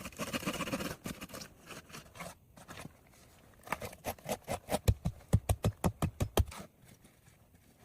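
Handsaw cutting into the wood of a tree stump: a short rasp at first, then about halfway in a quick run of about a dozen sharp strokes, about four a second, that stops near the end.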